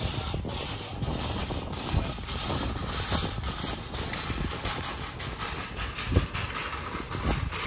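Outdoor street ambience: a steady wash of city noise with a low rumble of passing traffic.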